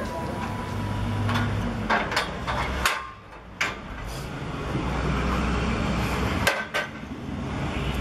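Sharp metal knocks and clanks from a scaffold frame being gripped and climbed, over a steady background hum. The knocks come in a cluster about two to three seconds in, with two more near the end.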